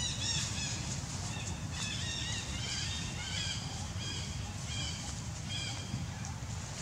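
Birds chirping: a run of short, high, arched chirps that stops about five and a half seconds in, over a steady low rumble.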